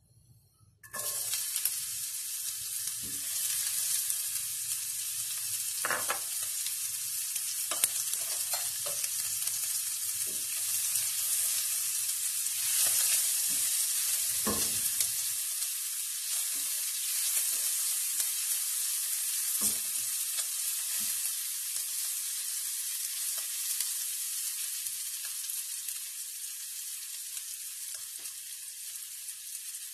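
Diced onions dropped into hot bacon fat in a frying pan, sizzling. A utensil stirs and knocks against the pan now and then. The sizzle starts about a second in and slowly fades toward the end.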